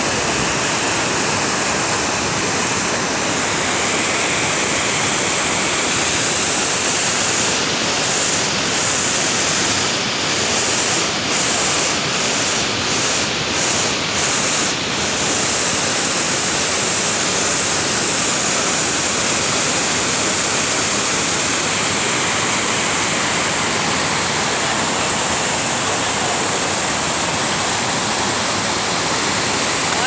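Large waterfall pouring over rock ledges, heard close up: a loud, steady rush of falling water.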